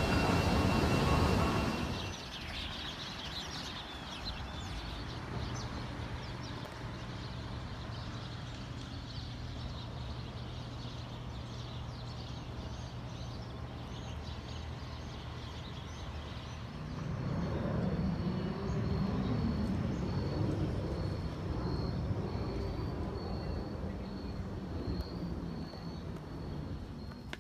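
About two seconds of loud subway-station escalator noise with a steady high whine, then a cut to quieter outdoor ambience: a steady low hum with faint bird chirps, and a louder low swell of passing traffic about two-thirds of the way through.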